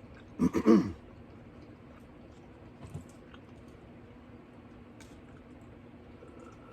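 Eating sounds: a brief vocal sound falling in pitch about half a second in, then a few faint mouth clicks and chewing over a low steady hum.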